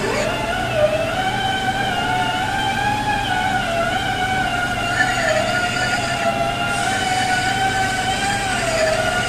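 Lathe cutting tool squealing against a large steel disc as its face is turned: a steady, pitched squeal with overtones, typical of tool chatter. It slides quickly up in pitch as it starts, then holds with a slight waver.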